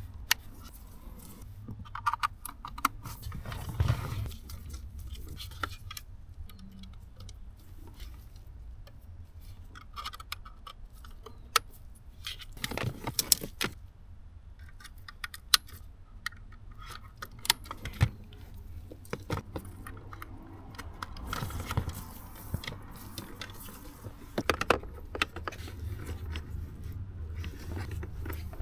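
Wiring harness, cables and plastic connectors being handled: scattered clicks, taps and light rattles at irregular intervals, over a low steady rumble.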